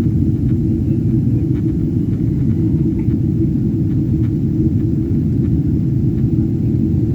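Steady low rumble of airliner cabin noise, with a few faint ticks over it.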